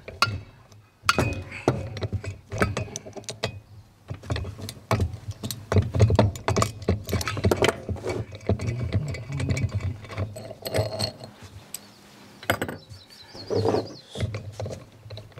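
Metal puller tool clinking and rattling on the prop shaft of an outboard lower unit as its threaded rods and nuts are worked loose and it is taken off: many sharp clicks and knocks, over a steady low hum.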